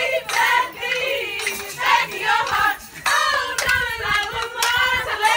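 A group of young women singing together, with hand claps.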